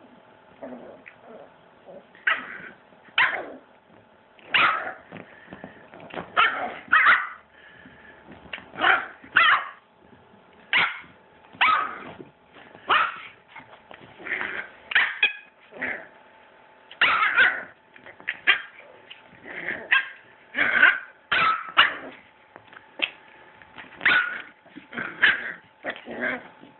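Puppies barking at each other in rough play-fighting, short barks coming about once a second, now and then two close together.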